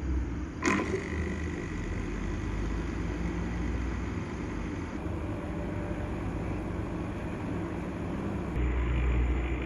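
Reef aquarium equipment running: a steady hum and water noise from the hang-on-back protein skimmer and tank circulation, with one sharp click about a second in. The low hum grows louder near the end.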